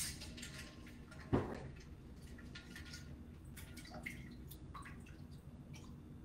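Water dripping and splashing back into a stainless steel bowl of ice water as blanched broccoli florets are lifted out of it, with a louder knock about a second in.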